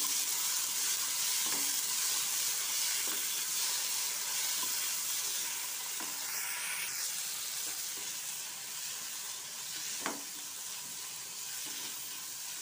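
Boiled field beans (mochai) sizzling in hot oil in a nonstick kadai as a wooden spatula stirs them, sautéing the sundal in its mustard and chilli-powder tempering. The spatula gives soft scrapes and knocks against the pan about every second and a half, with one sharper knock near the end.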